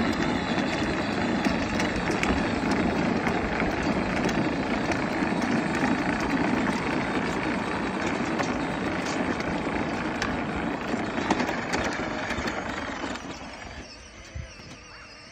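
Hard plastic wheels of a children's ride-on toy vehicle and the wagon it tows rumbling and clattering steadily over a concrete sidewalk, with small clicks throughout. The sound fades about thirteen seconds in as they roll off onto grass.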